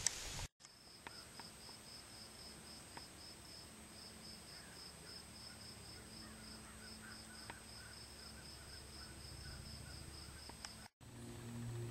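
Cricket chirping steadily, about four high chirps a second, over a thin steady high whine, with faint twittering in the middle. The sound starts abruptly about half a second in and cuts off near the end.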